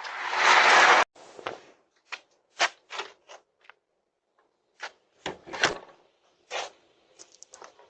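A loud rushing noise that builds and cuts off abruptly about a second in, then a string of sharp clicks and knocks spread irregularly, like objects or latches being handled.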